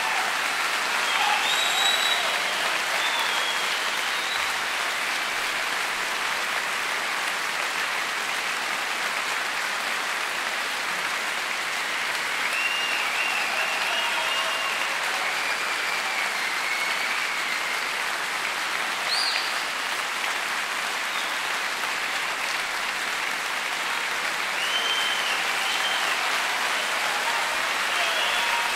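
Live concert audience applauding: dense, steady clapping, with a few faint high calls rising and falling over it.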